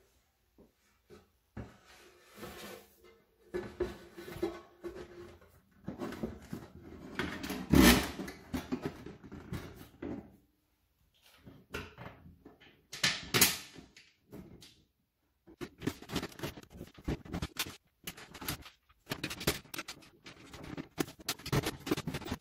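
Thin corrugated galvanized steel panels being handled and fitted together: sheet metal rattling, scraping and knocking in irregular bursts. There is a loud knock about eight seconds in and another about thirteen seconds in, with a run of quick clicks and rattles near the end.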